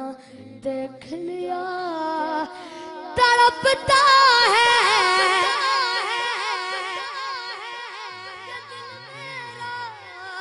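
A boy singing a naat unaccompanied into a microphone, with ornamented, wavering melodic turns. About three seconds in his voice rises to a loud, long-held high note with a wide vibrato, then gradually comes down again.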